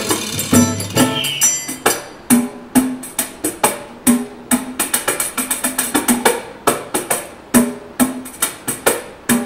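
Hand percussion played solo in a quick, uneven rhythm, about three or four sharp strikes a second, many with a short low drum note under a bright, jingly edge.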